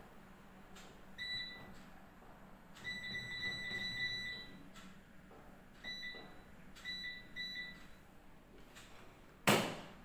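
Control panel of a Von 9 kg front-loading washing machine beeping as the program knob is turned and buttons are pressed: short electronic beeps, single and paired, with a string of them in quick succession about three seconds in. A loud, sharp knock sounds near the end.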